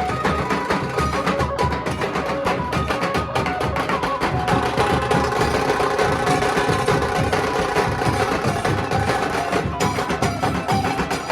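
Nasik dhol ensemble playing: big dhol drums and sharp tasha strokes beat a fast, dense rhythm, with a sustained melody line over the drumming.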